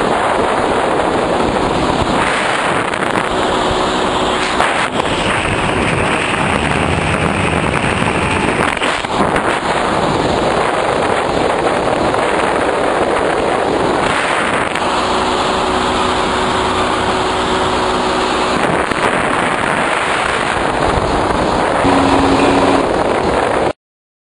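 Wind buffeting the microphone with a motor running underneath, a faint hum coming and going in it; it cuts off suddenly near the end.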